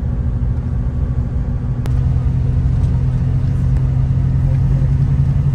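Bus engine and road rumble heard from inside the cabin of a moving park bus. There is a single sharp click a little under two seconds in, after which a steady low engine drone comes up and holds.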